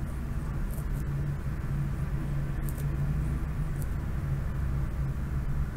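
Steady low background hum and rumble, with a few faint clicks.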